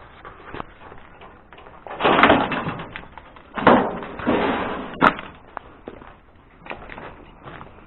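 Someone clambering and stepping into a dark attic: three loud scuffs and scrapes in the middle, then a sharp knock about five seconds in.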